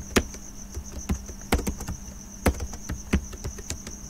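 Computer keyboard keys pressed one at a time in uneven clicks, typing Urdu text into a word processor, over a steady high-pitched whine.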